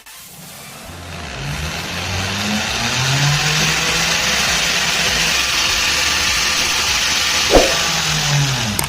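Machine-shop machine tool running: its motor spins up about a second in and runs steadily under a strong hiss, with a brief sharp squeal near the end, then its pitch drops as it winds down.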